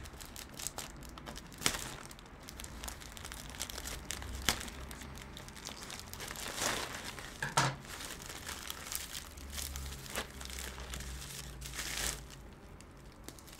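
A plastic mailing bag crinkling and rustling as it is cut open with scissors, with a few sharp snips. Near the end the plastic rustles as a wrapped packet is pulled out of it.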